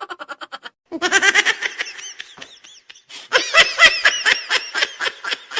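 Laughter sound effect: quick repeated bursts of laughing, getting louder a little past halfway through.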